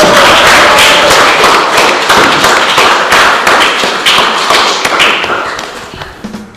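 Studio audience clapping, a dense patter of claps that dies away near the end.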